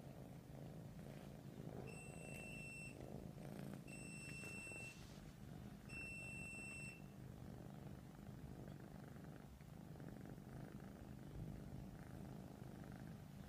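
Persian cat purring steadily in a low, quiet rumble. Three electronic beeps, each about a second long and two seconds apart, sound over it in the first half.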